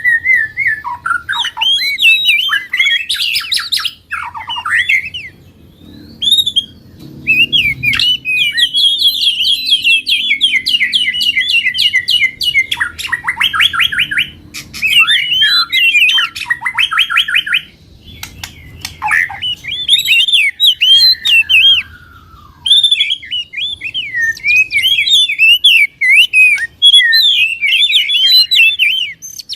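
Songbird song: a fast, varied stream of chirps, whistled notes and rapid trills with some harsh squawk-like notes, broken by brief pauses about six seconds in and again near eighteen seconds.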